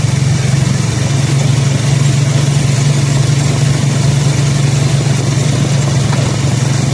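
Motorcycle engine running at a steady speed while riding, under a loud steady rush of wind and road noise.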